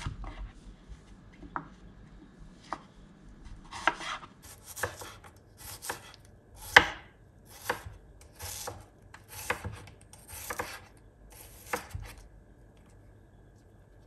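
Kitchen knife slicing a white onion on a bamboo cutting board: about a dozen separate crisp cuts, roughly one a second, faint at first and then stronger, stopping shortly before the end.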